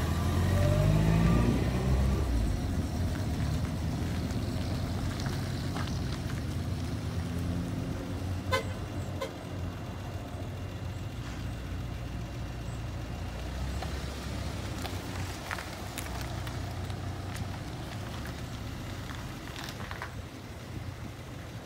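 Car engines running: one accelerates away in the first two seconds, its pitch rising and falling, over a steady low engine rumble. A short horn toot comes about eight and a half seconds in.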